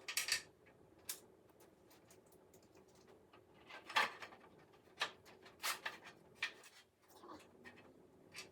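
Scattered light clicks and knocks of a cordless drill and its bit attachments being handled as the bit is swapped out; the drill does not run.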